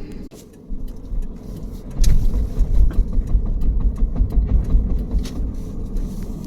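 Subaru Forester SH drivetrain knocking over a low vehicle rumble, with a string of sharp knocks, which the owner puts down to a worn viscous coupling. The rumble and knocks get much louder about two seconds in.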